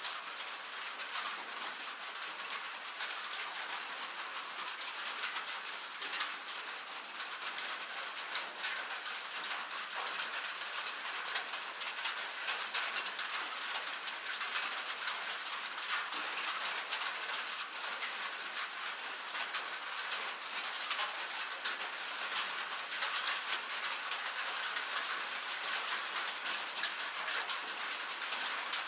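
Rain falling steadily on a metal roof: a constant hiss with many sharp, quick ticks of drops striking the sheet metal.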